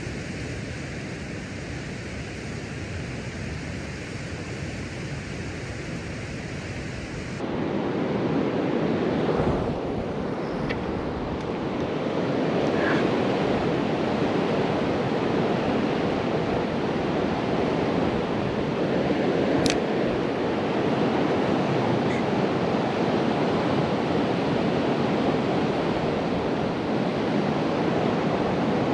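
Steady rush of flowing river water, stepping up louder and fuller about seven seconds in, with a single sharp click later on.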